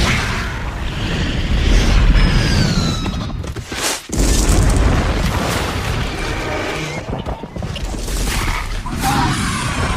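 Film sound effects of a meteor strike: a loud, deep rumble with repeated booms of impacts and explosions. A few high sounds slide down in pitch about two to three seconds in, and the sound breaks off abruptly for a moment about four seconds in.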